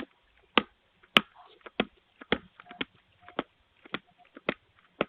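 A steady series of sharp knocks, about one every half second to two-thirds of a second, with quiet between them, heard through a doorbell camera's thin audio.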